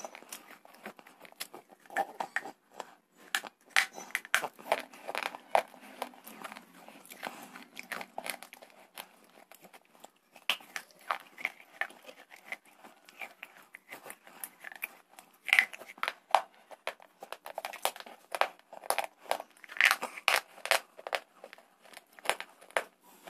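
Slate bar pieces coated in thick red clay paste being bitten and chewed close to a microphone: a dense, irregular run of sharp crunches, several a second, with louder bites now and then.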